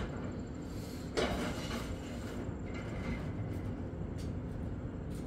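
Kitchen handling noises: a clatter about a second in, then a few light knocks, over a steady low rumble.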